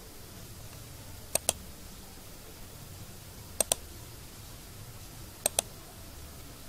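Computer mouse button clicked three times, about two seconds apart. Each click is a quick pair of ticks, the press and then the release.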